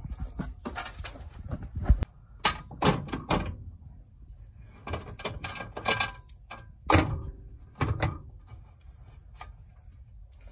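Steel swivel-seat base plate knocking and clunking against the seat mount as it is lifted and shifted to line up the bolt holes: a string of irregular sharp metal knocks.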